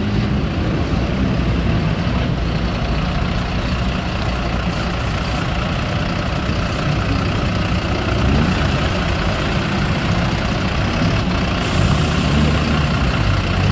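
Diesel bus engine idling steadily with a low hum, mixed with the engines of cars driving slowly past.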